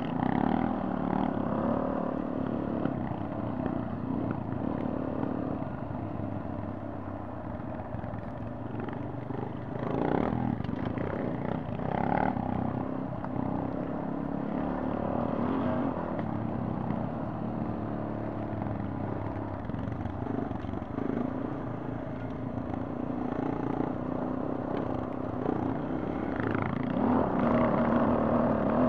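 Trail motorcycle engine running under way on a rough gravel track, its note rising and falling with the throttle, with a few knocks from the bike over bumps. It gets louder and higher near the end.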